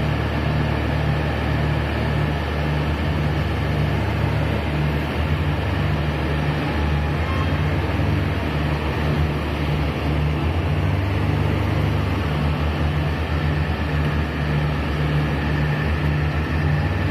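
Diesel engine of a Komatsu WA100 wheel loader running under work as it drives up and raises a loaded bucket over a dump truck. It makes a low, steady drone with a faint regular pulse.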